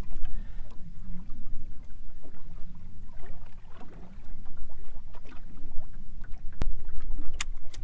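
Steady low rumble aboard a small fishing boat, with a couple of sharp knocks near the end.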